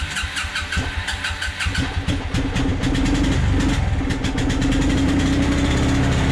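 A Suzuki King Quad 300 ATV's single-cylinder four-stroke engine is cranked on the electric starter. It catches about two seconds in and then runs at a steady idle.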